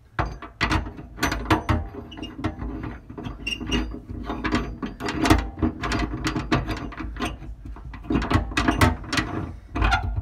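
Irregular metallic clicks and clanks of a wrench tightening a bolt in a truck-bed rail mount.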